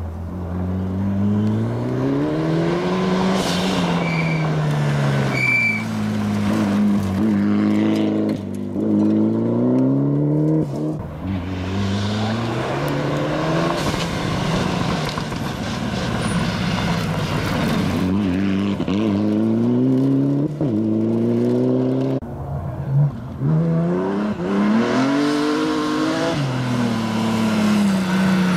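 Rally cars at full throttle on a gravel stage. First a Mitsubishi Lancer Evolution's turbocharged four-cylinder rises and falls in pitch through gear changes and lifts as it approaches and passes, over gravel noise from the tyres. About three-quarters of the way in a second car, a BMW E36, takes over, revving the same way.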